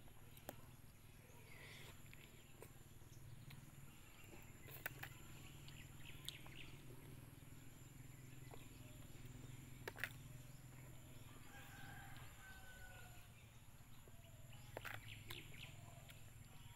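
Near silence: faint outdoor ambience with a low steady hum, a few soft clicks, and faint bird chirps about twelve seconds in.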